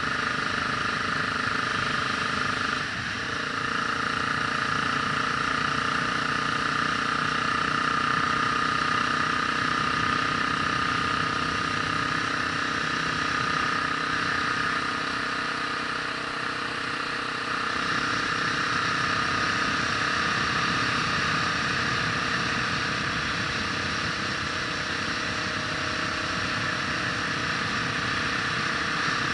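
A vehicle's engine running steadily while driving, heard from an onboard camera, with a steady whine over the engine and a brief dip in level about three seconds in.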